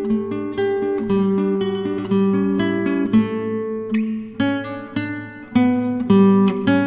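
Background music: a guitar picking out a tune of notes and chords, each note plucked and dying away.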